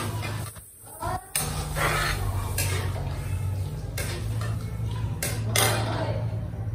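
Pots, pans and metal utensils clattering: several sharp knocks about a second apart over a steady low hum.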